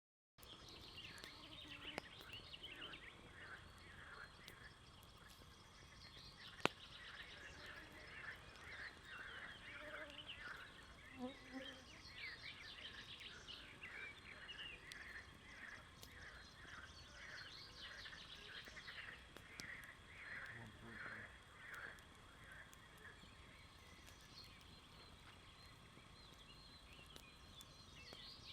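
Birds chirping and calling busily, faint, over a low steady background hiss. A couple of sharp pops stand out, the loudest about six and a half seconds in.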